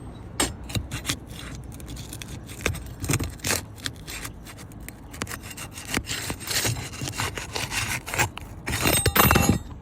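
Asphalt shingle being pried up and unsealed from the roof: irregular scraping and rubbing of a tool against the shingle as its seal breaks loose, with a longer, louder scrape near the end.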